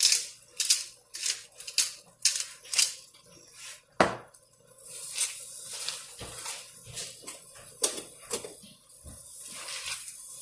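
Spoon working beans in a frying pan: a run of quick scraping strokes, then a steady sizzle with occasional clinks of the spoon against the pan.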